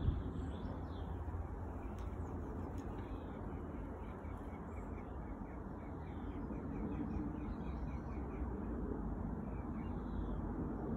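Distant jet engine rumble from a Boeing 787 airliner flying high overhead, swelling slightly in the second half. A small bird chirps a quick run of repeated short notes in the background.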